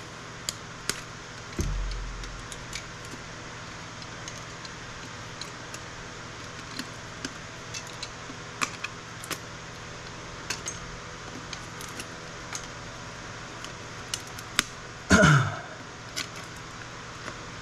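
Scattered clicks, snaps and small metallic clatters of electronic components being pried and pulled off circuit boards by hand, with a low thud about two seconds in and a louder clatter near the end.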